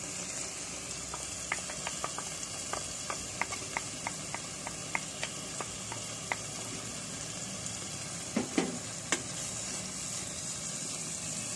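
Onion, mint and coriander masala sizzling in a pot on low heat, with many small crackling pops. A few sharper knocks of a wooden spoon against the pot come about three-quarters of the way through.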